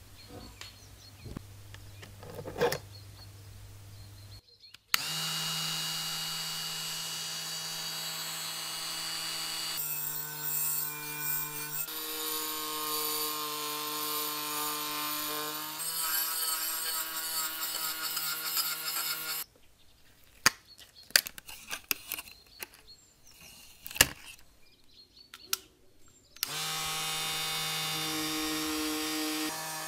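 Cordless rotary tool spinning a small wire brush against copper, its steady high whine stepping in pitch a few times as it bears on the metal. It starts about five seconds in, stops about fourteen seconds later, and starts again near the end, with sharp clicks of bits and the tool being handled before and between the runs.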